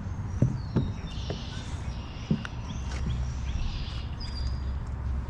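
Birds chirping now and then over a steady low rumble of outdoor background, with a few sharp knocks and clicks, the loudest about half a second and two seconds in.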